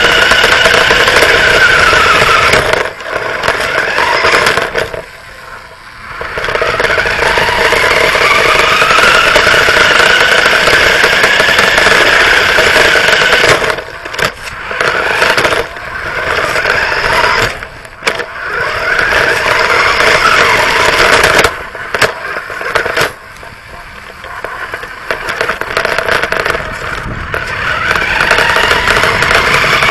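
Radio-controlled car's motor running, its pitch rising and falling with the throttle, with rattling of the chassis on the asphalt. It eases off several times, briefly dropping in level.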